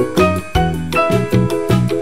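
Background music: a bouncy keyboard tune over a steady beat.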